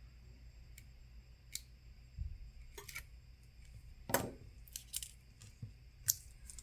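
Scattered light clicks and taps of small parts being handled in a phone screen repair, the loudest about four seconds in, over a low steady hum.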